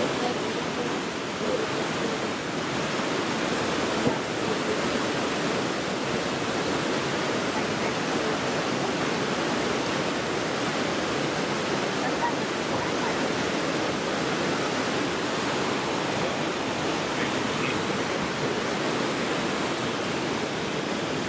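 Waterfall on a creek: water rushing steadily over the falls with no breaks.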